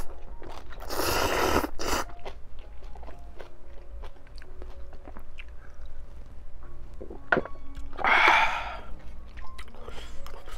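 Ramen noodles from a crab stew slurped up in one long, noisy draw about a second in, then chewing and small wet mouth sounds, and a second loud breathy burst near the end.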